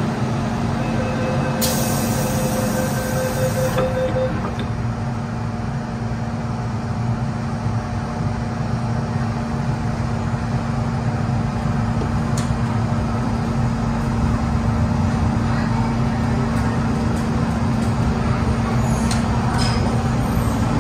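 Interior of an MTR M-Train metro car: a steady electrical hum over running rumble as the doors close and the train pulls out of the station into the tunnel. There is a brief high hiss about two seconds in.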